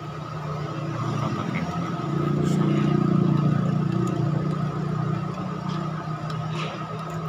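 A motor engine running, growing louder about two seconds in and easing off toward the end, with a few faint light clinks of a metal spoon stirring sauce in a steel pot.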